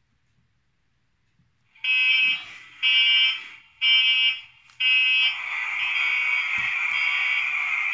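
Hornby Class 66 model locomotive's TTS sound chip playing a simulated cold start of the diesel engine through the model's small onboard speaker: four short cranking turnovers about a second apart, then the engine catches and runs steadily.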